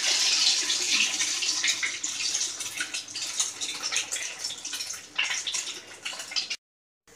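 Oil sizzling and crackling around a stuffed Mughlai paratha shallow-frying in a pan on its second side. The sizzle thins out after about five seconds and cuts off abruptly near the end.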